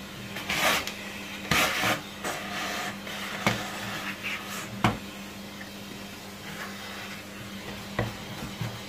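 A vacuum cleaner running with a steady hum, sucking dust out of a floor nozzle. The suction rushes loudly twice in the first two seconds, and there are sharp knocks about three and a half, five and eight seconds in as the hose end bumps the nozzle.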